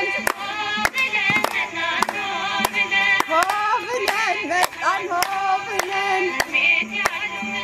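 A sung song with a steady beat of handclaps, about two claps a second.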